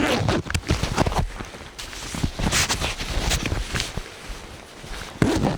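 Footsteps of hikers walking along a trail: a run of uneven steps, loudest at the start and again with a heavy thud near the end.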